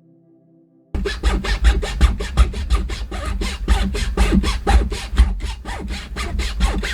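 Hand saw cutting through a nylon rod in a miter box, in quick, even back-and-forth strokes, several a second, starting suddenly about a second in.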